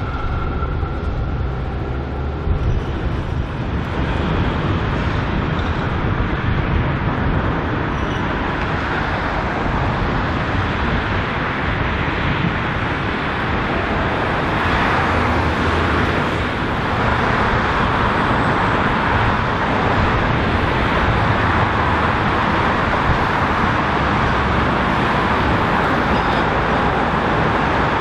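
Steady street traffic noise along a tram line, with trams running on the tracks.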